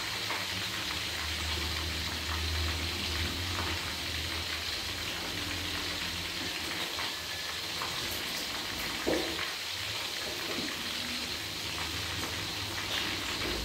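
Chicken pieces in galangal spice broth bubbling in an aluminium wok over a gas flame: a steady hissing simmer as the liquid cooks down, with one brief louder pop about nine seconds in.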